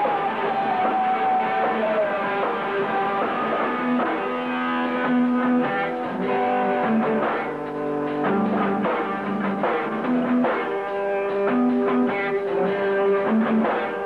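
A rock band playing live: ringing electric guitar notes that shift in pitch, over drums.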